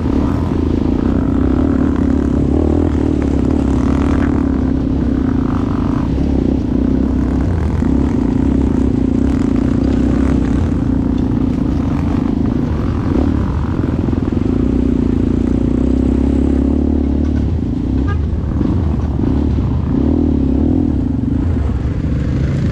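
ATV engine running under way, its note dropping and picking up again several times as the throttle is eased and reopened.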